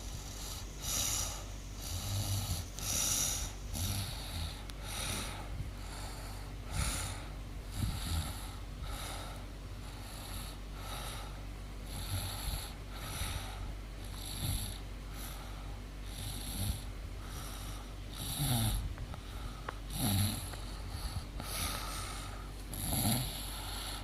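A woman snoring in her sleep: repeated rough, hissing snores, some with a low rattling tone, over a steady low hum.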